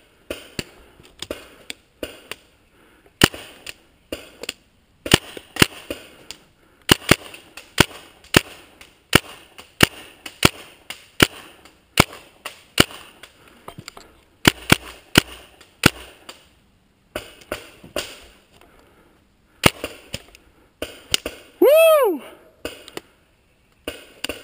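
Paintball markers firing, sharp pops in quick irregular strings of two to four shots with short pauses between. About two seconds before the end there is a short, loud, pitched sound that rises and falls.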